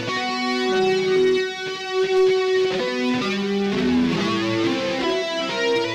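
Electric guitar played through a Line 6 M13 effects modeler: a slow single-note melody with notes held for a second or two each.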